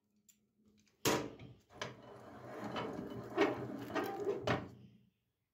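Handling noise at a steel bench vise as the knife is worked in it: a sudden knock about a second in, then scraping with several sharp clicks for about four seconds.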